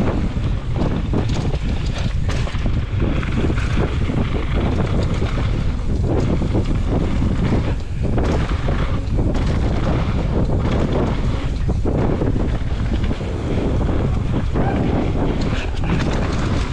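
Wind rumbling over the microphone of a mountain bike rider's camera during a fast descent on a dirt trail, with frequent knocks and rattles from the bike jolting over bumps.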